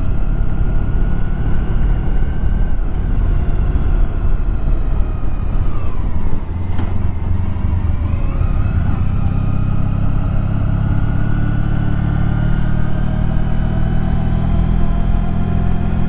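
Honda ST1100 touring motorcycle's V4 engine running at low road speed, with wind noise. About six seconds in the revs dip briefly and then climb again as the bike pulls away.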